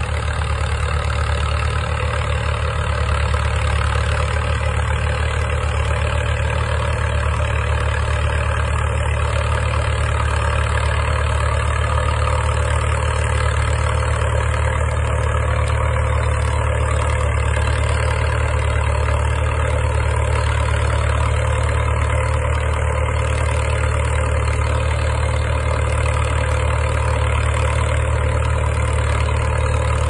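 Fordson E27N Major tractor engine running steadily under load as it pulls a trailed plough through the soil. The engine note stays even, without revving up or down.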